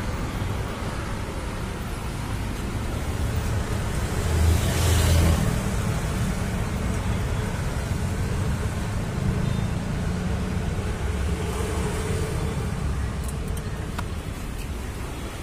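Steady road traffic noise of passing vehicles, with a louder swell about four to five seconds in.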